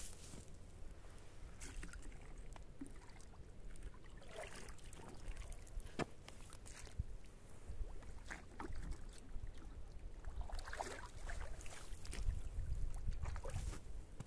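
A plastic bucket dipped into a shallow creek and filled, the water splashing and sloshing, loudest near the end as it is hauled out. Scattered crunches and knocks from boots on the snowy bank.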